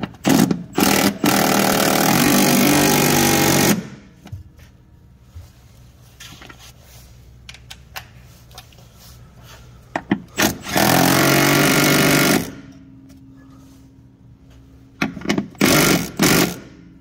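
Cordless brushless impact wrench driving the upper mount bolts of a 2007 Honda Odyssey's new rear shock. A few short blips open into a hammering run of about three seconds, a second run comes around the middle, and short bursts near the end snug the second bolt.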